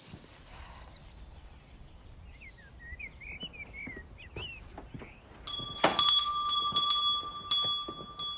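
Birds chirp briefly. About five and a half seconds in, a doorbell starts ringing with a steady high tone and keeps on for about four seconds, with a few clicks through it.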